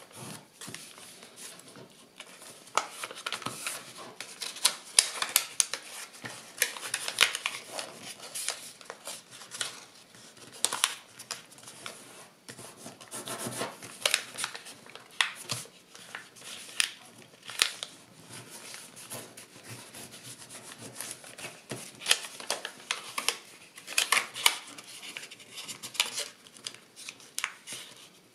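Kraft paper being folded by hand: irregular crinkling rustles and rubbing as fingers press and smooth the creases flat.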